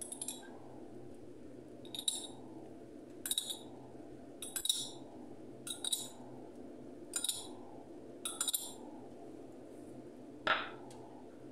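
Metal spoon clinking against a small drinking glass as green food colouring is spooned out of it onto rice: short, light clinks about every second or so, some doubled, about seven in all, over a steady low background noise. A single louder knock comes near the end.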